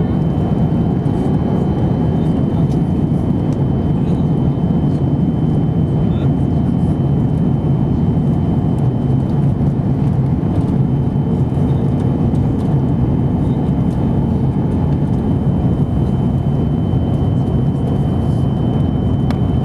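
Steady cabin noise inside an Airbus A330-200 in flight: an even drone of engines and rushing airflow, with a faint thin high whine running through it.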